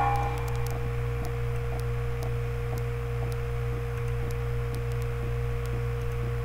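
A steady hum with a constant mid-pitched tone above it and faint scattered ticks.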